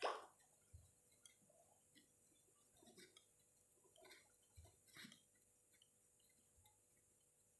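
Faint, irregular clicks and taps of knitting needles as plain knit stitches are worked, with one short, louder swish right at the start.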